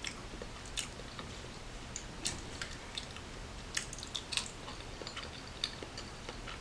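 A person chewing a mouthful of soft macaroni and cheese, with short wet mouth clicks and smacks at irregular intervals.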